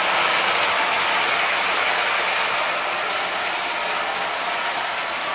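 O-gauge model train's passenger cars rolling over the layout's track, a steady mechanical wheel-on-rail noise that grows slightly fainter as the train moves off.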